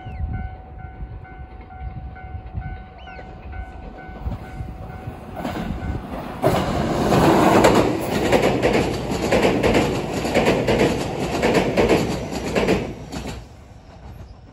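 Electric train passing close by, with a low rumble that builds, then a loud stretch of wheels clattering over rail joints from about six to thirteen seconds in before it fades.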